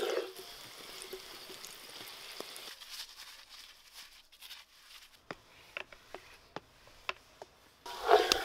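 Small potatoes and bacon frying in a cast-iron pan, sizzling with a fine hiss, which drops away a little under 3 seconds in. Sparse sharp clicks and taps follow, and a brief louder burst comes near the end.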